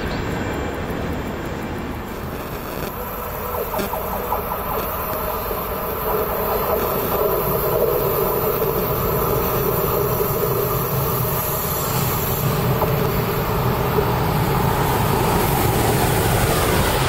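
An ÖBB Taurus electric locomotive hauling passenger coaches approaches along the line. The rumble of wheels on rail and a steady hum grow gradually louder until it passes close near the end.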